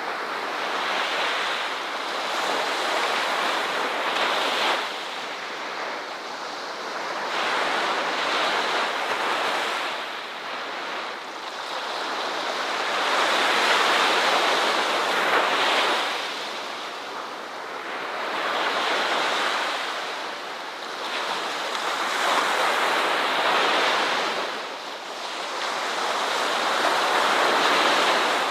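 Ocean waves breaking on a shore: a continuous wash of surf that swells and ebbs, with a new wave surging in every few seconds.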